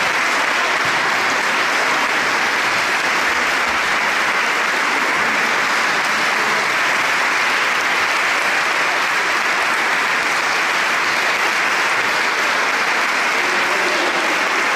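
Audience applauding, a steady, sustained clapping that keeps going without a break.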